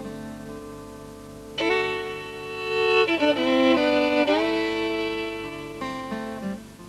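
Background music: a slow violin melody over held string notes. A louder phrase enters about a second and a half in, with sliding notes in the middle, and it fades near the end.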